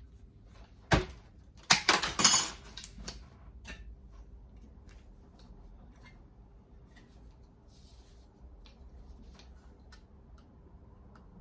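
Hand tin snips cutting through thin, rusty sheet steel, with metal clinking and clanking. There is a sharp clank about a second in and a loud burst of snips and rattles just after, then lighter scattered clicks.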